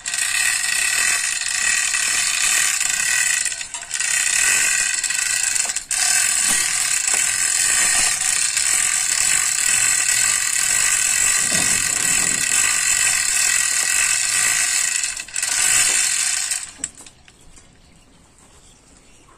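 Hand-chain hoist being worked to lift a heavy boat shaft tube: a steady, loud ratcheting clatter of chain running through the block. It breaks briefly about four and six seconds in and stops about three seconds before the end.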